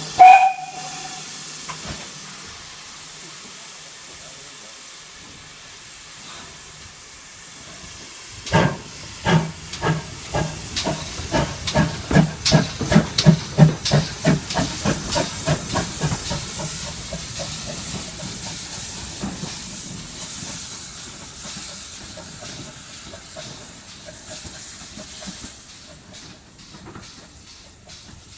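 Steam locomotive gives a short whistle blast and its steam hisses. About eight seconds in it starts pulling away with exhaust chuffs that quicken and grow louder, then fade.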